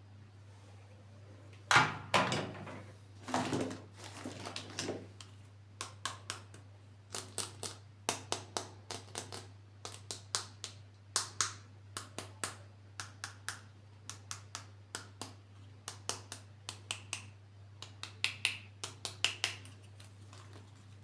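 Hands handling plastic toy packaging and parts: a crackling stretch, then a long run of small sharp clicks and taps, about two to three a second, over a low steady hum.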